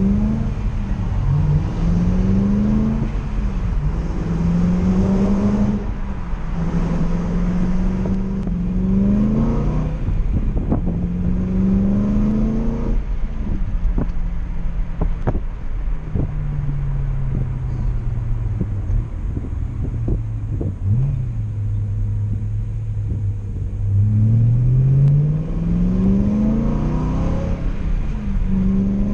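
BMW E92 M3's V8 through an Autobahn Exotics aftermarket exhaust, heard from inside the moving car. The engine pulls up through several gear changes, its note climbing and dropping back each time, then winds down slowly for about ten seconds before climbing hard again near the end. Wind buffets the microphone throughout.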